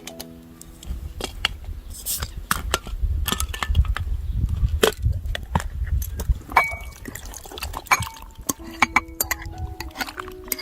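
Dishes and utensils clinking over low handling noise. Soft background music notes come in at the start and return near the end.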